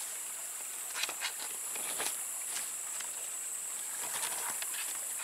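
Steady high-pitched insect chorus, with leaves and twigs of a spicebush rustling and crackling in short bursts as its branches are pulled and handled.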